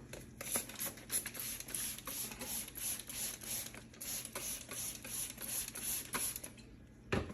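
A washcloth scrubbing back and forth on the outside of a microwave door, in quick even strokes about three a second, which stop near the end, followed by a single knock.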